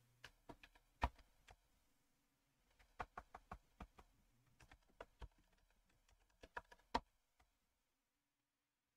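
Typing on a computer keyboard: faint keystrokes in several short runs, with a few louder key presses, stopping about two thirds of the way through.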